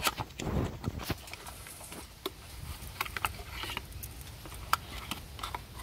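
Small cardboard parts box being opened and handled, with scattered light clicks and rustles as a new thermostat is taken out of its packaging.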